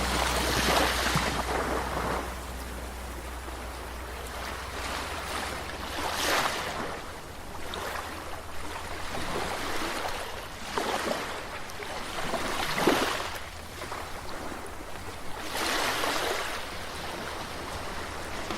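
Caribbean sea waves washing onto the shore, the surf swelling and ebbing about five times.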